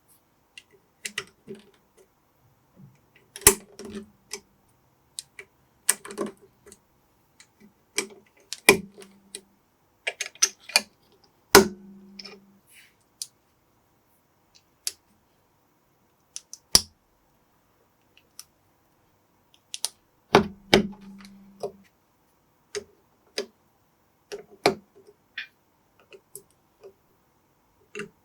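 Plastic building bricks being handled and pressed together: irregular clicks and taps, with a few louder sharp snaps.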